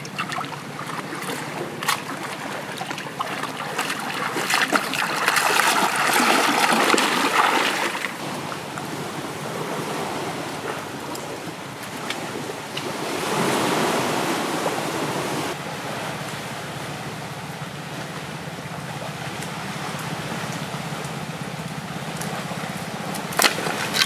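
Seawater washing among shoreline rocks with small waves lapping, a steady rush that swells louder twice, with a few light knocks.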